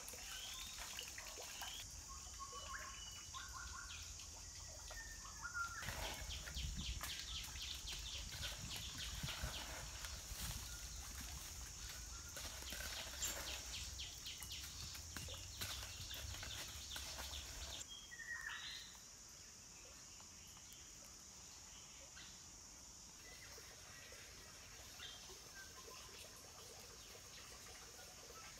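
Faint outdoor forest ambience: birds chirping in short calls over a steady high-pitched hiss. A busier stretch of quick regular ticking and low rumble fills the middle, then drops away about two-thirds through, leaving the quieter hiss and occasional chirps.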